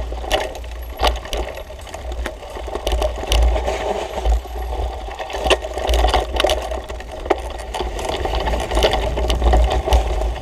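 Mountain bike clattering over a rough trail: the chain, frame and components rattle with many irregular sharp knocks, while wind buffets the microphone in a rumble that comes and goes.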